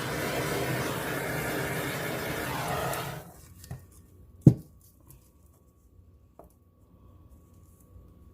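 Handheld torch flame hissing steadily over freshly poured acrylic paint for about three seconds, then shut off abruptly. A single sharp knock follows a second or so later.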